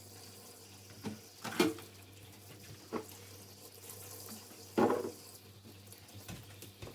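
Household items being handled and set down: several sharp knocks and clatters, the loudest about a second and a half in and again near five seconds, over a steady low hum.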